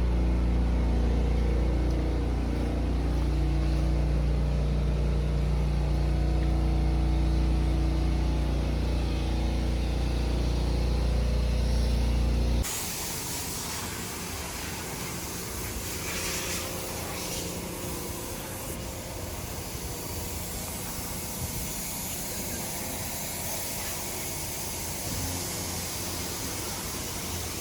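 A Porsche 718 Boxster running, heard as a loud, steady low drone whose engine pitch shifts slowly. About halfway through there is an abrupt change to a steady hissing spray, like a self-service car-wash pressure wand.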